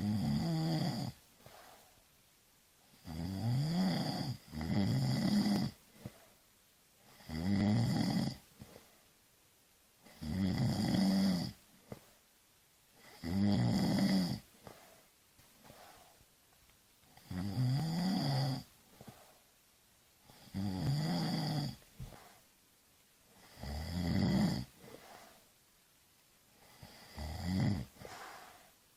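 A person snoring steadily, about one snore every three seconds, some in close in-and-out pairs. Each snore is a rough, pitched sound that bends up and down in pitch.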